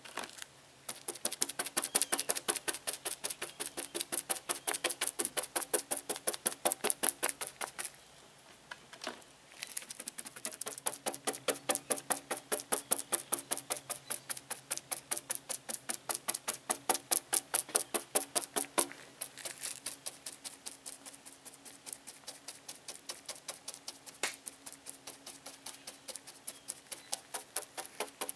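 A resin-loaded bristle chip brush dabbed quickly and repeatedly onto chopped-strand fiberglass mat, wetting it out, about four wet strokes a second with a short pause about eight seconds in.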